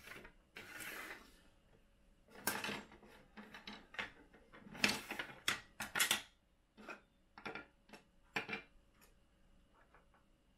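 Hard 3D-printed plastic parts being handled and set down on a wooden workbench: irregular clicks and clacks with a brief scraping slide about half a second in, busiest around the middle, thinning out near the end.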